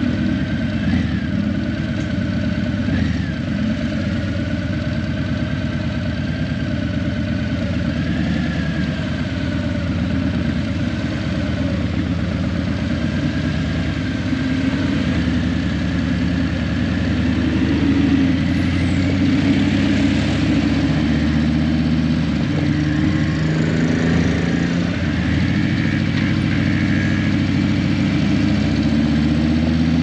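Harley-Davidson Breakout 117's Milwaukee-Eight 117 V-twin engine running through Vance & Hines Eliminator 300 slip-on mufflers. It runs steadily, and the engine speed shifts slightly now and then.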